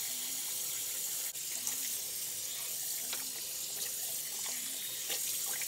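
Bathroom sink tap running steadily, with water splashing as a foam-covered face is rinsed over the basin.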